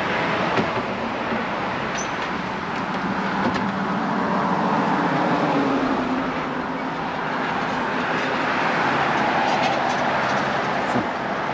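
Motor vehicle running: a steady engine and road noise whose engine note wavers slightly in pitch.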